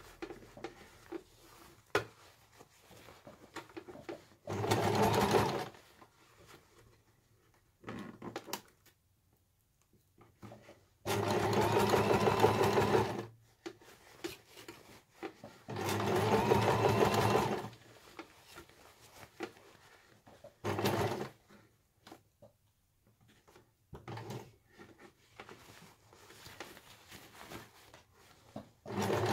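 Electric sewing machine stitching in short stop-start runs of one to two seconds, with quiet pauses between them while the fabric is shifted along a curved hat-brim seam.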